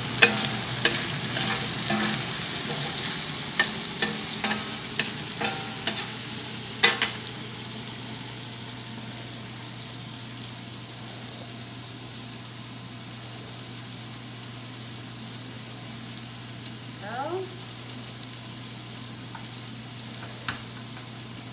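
Diced chicken thighs sizzling in oil in a cast-iron skillet, with a metal spatula scraping and clacking against the pan over the first several seconds and a sharp knock about seven seconds in. After that the frying goes on as a quieter, steady sizzle.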